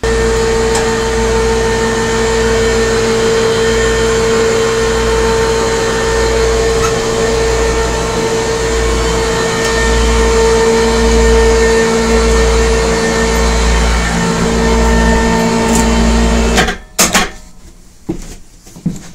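Power Fist 440/880 lb electric cable hoist running under load as it winches the garage attic lift up: a steady motor whine over a low pulsing hum. The motor cuts off suddenly a couple of seconds before the end, followed by a few knocks.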